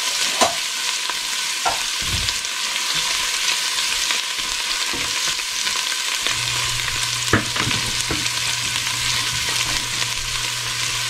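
Chopped garlic sizzling steadily in hot olive oil in a stainless steel pot, stirred with a silicone spatula that now and then scrapes or taps against the pot; the garlic is still pale, frying toward golden brown. A low steady hum comes in about six seconds in.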